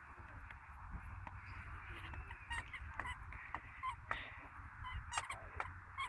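A squeaky toy squeezed repeatedly in an Irish setter's mouth: faint, short squeaks coming at irregular intervals from about two seconds in.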